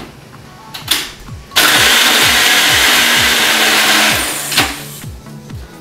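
Ninja Professional blender running with a single-serve cup of almond milk, ice cubes and protein powder, starting suddenly and blending for about two and a half seconds before stopping. Short knocks of the cup on the base come before and just after the run.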